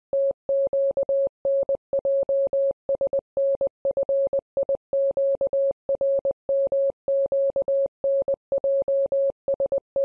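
Morse-code-style beeping sound effect: a single mid-pitched electronic tone keyed on and off in a rapid, irregular run of short and long beeps.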